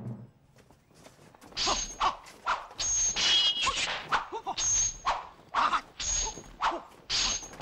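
Film sound effects of a sword fight: a rapid series of metal-on-metal clangs as blades strike, about two a second, each with a short bright ring. They start about a second and a half in.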